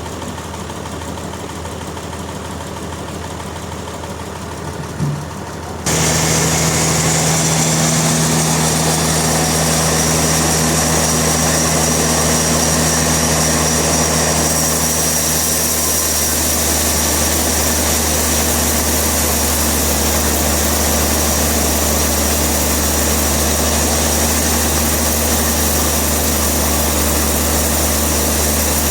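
Industrial sawmill machinery running with a steady low hum; about six seconds in it jumps abruptly louder, with a hiss and a steady high whine that continue throughout.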